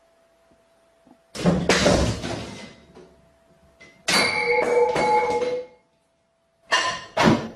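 A series of sudden loud crashes or bangs: one about a second and a half in that fades away, a longer one a few seconds later with a ringing tone in it, and two short bangs near the end.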